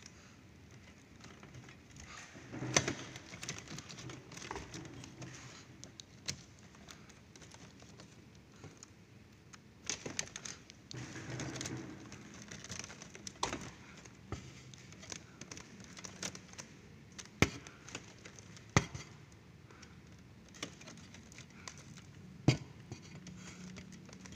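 Hands rummaging through the wiring of a ceiling cassette air-conditioner's indoor unit: cables rustling, with a few sharp clicks of plastic connectors and metal parts.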